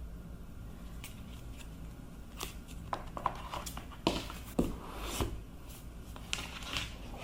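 Small objects being handled: a scattered run of light clicks, taps and rustles over a low steady hum of room tone, with the loudest knocks about four to five seconds in.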